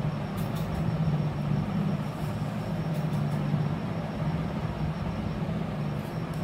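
Steady low machine-like hum and rumble, with a few faint light ticks.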